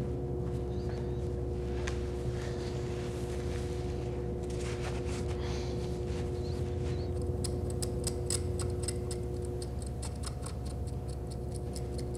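A steady mechanical hum, then from about seven seconds in a run of quick, irregular small clicks.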